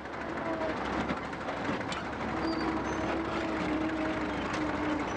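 Diesel engine of a Belarus tractor-backhoe running steadily as the machine moves, its engine note wavering slightly.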